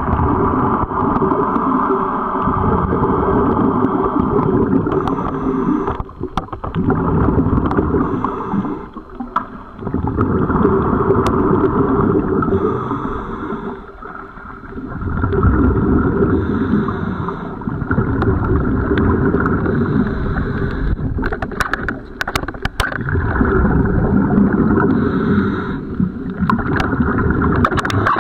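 A scuba diver's regulator breathing, heard underwater: long swells of bubbling exhaust, broken every few seconds by short, quieter gaps.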